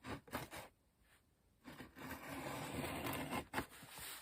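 Cardboard shipping box being handled and opened: a few short knocks, then a couple of seconds of scraping and rubbing as the cardboard is worked open, then a few more clicks.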